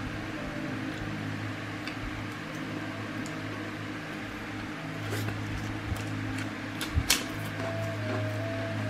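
Steady low hum with a faint melody of a few notes coming and going, and a metal spoon clinking against a ceramic plate as it is set down, about seven seconds in.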